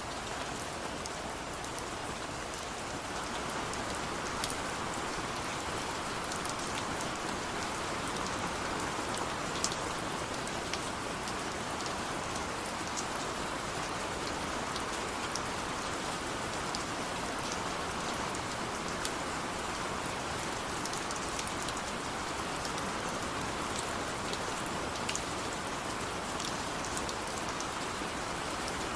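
Steady rain falling, an even hiss dotted with scattered sharper drop ticks, growing slightly louder about three seconds in.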